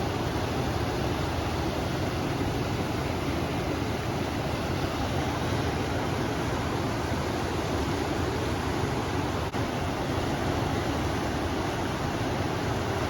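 Steady rushing of a river, with wind blowing over it, as one even wash of noise; a very brief dropout about two-thirds of the way through.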